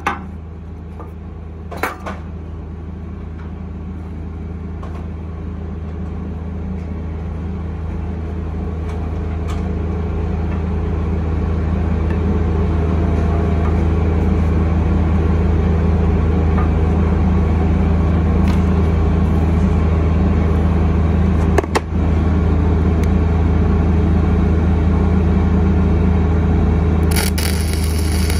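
An engine runs steadily with a low hum, growing louder over the first half. Near the end a stick-welding arc is struck on the steel plate and sets up a crackling hiss over the drone.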